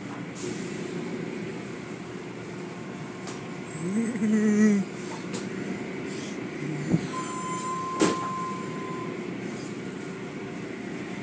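Automatic tunnel car wash running: a steady hum and hiss of machinery, water spray and cloth brushes sweeping over a car. About four seconds in there is a brief pitched sound, the loudest moment, and a couple of sharp clicks come a few seconds later.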